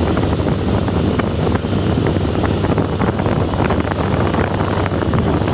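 Motor vessel's engine running steadily under test, a loud continuous rumble at an even speed.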